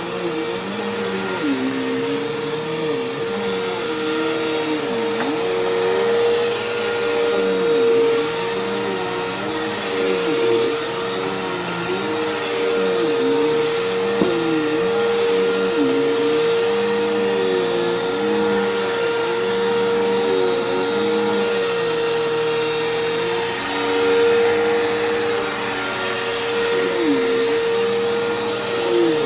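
Bissell PowerForce Helix upright vacuum cleaner running on carpet, its motor holding a steady whine while lower tones rise and fall with each push and pull of the cleaner head.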